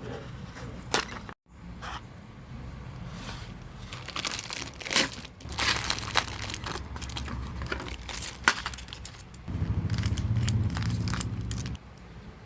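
Plastic and cardboard toy packaging being crinkled and torn open by hand, with irregular crackles and sharp clicks. Near the end there is a louder low buzz lasting about two seconds.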